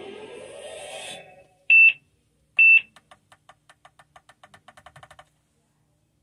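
Music tailing off, then two loud electronic beeps at one high pitch about a second apart, followed by a run of faint quick ticks that speed up and stop about five seconds in.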